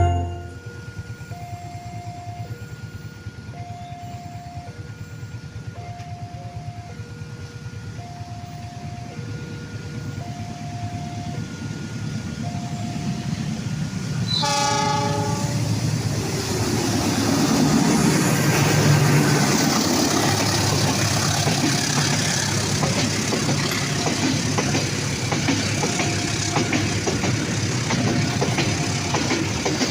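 Railway level-crossing alarm chiming a repeating pattern of short tones. About halfway through a train sounds a brief horn blast, then passes close by with a rising rumble and wheel clatter, loudest a few seconds later. The crossing chime is faintly heard again near the end.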